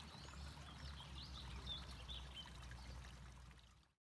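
Several birds chirping faintly in quick, short notes over a steady outdoor hiss and low rumble, all cutting off abruptly near the end.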